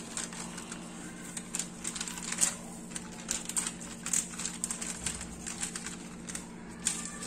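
Butter paper crinkling and crackling in irregular small clicks as a rolling pin is pushed over dough sandwiched between two sheets, over a faint steady hum.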